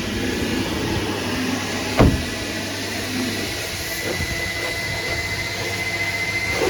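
Twin-motor 1985 Kärcher coin-operated vacuum running steadily: a constant rush of air with a low hum, and a faint high whine that comes in about two seconds in. A single sharp knock about two seconds in.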